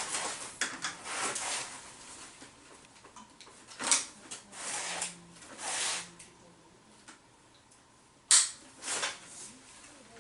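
Metal detector parts handled during assembly, as the search coil is fastened to the shaft by hand. There are a few sharp clicks, the loudest about four seconds in and again near eight seconds, between brief scraping and rustling strokes.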